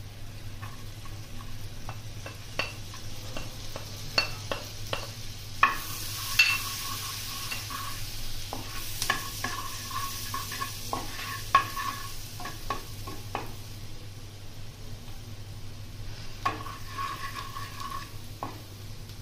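Food frying and being stirred in a pan: repeated knocks and scrapes of a utensil against the pan, some ringing briefly, over a sizzle that is strongest a few seconds in, with a steady low hum underneath.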